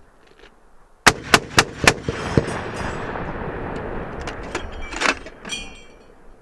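M2 .50 caliber heavy machine gun firing a short burst of four shots about a second in, followed by a long rolling echo. Near the end come a few sharp metallic clicks and a ringing clank.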